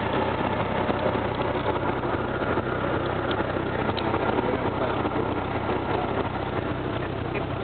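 Cessna 172R Skyhawk's four-cylinder Lycoming engine and propeller running steadily at low power during taxi, heard from inside the cabin as an even, unchanging drone.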